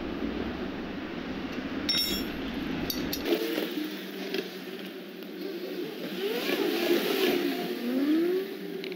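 A steel spanner working the nuts of steel anchor bolts on a steel base plate, with sharp metallic clinks about two and three seconds in. In the second half a vehicle engine in the background rises and falls in pitch.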